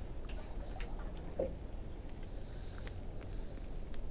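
Low steady rumble of wind and water around a small boat, with a few faint clicks and handling sounds and one short squeak about a second and a half in.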